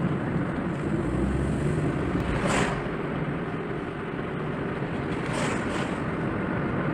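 A car driving along a road, heard from inside the cabin through a windscreen-mounted camera: steady road and engine noise, with brief hissing swells about two and a half and five and a half seconds in.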